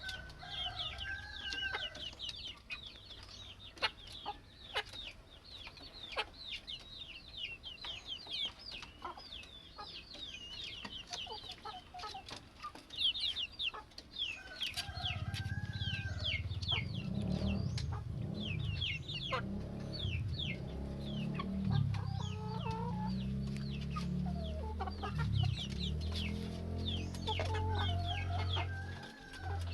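A flock of chickens: chicks peeping in a constant rapid high chatter, with hens giving occasional low clucks. A low rumble joins in about halfway through.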